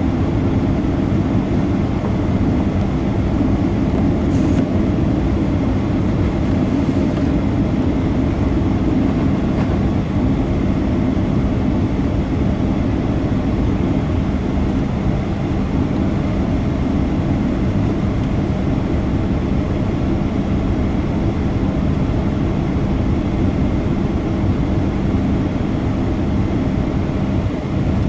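Steady in-flight cabin noise of a Boeing 737-800 heard from a window seat: an even rush of air and engine drone with a steady low hum, unchanging throughout.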